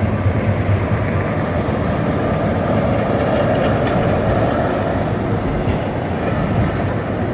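Historic tram running on its rails: a steady rumble with wheel-on-rail clatter, the running gear rattling.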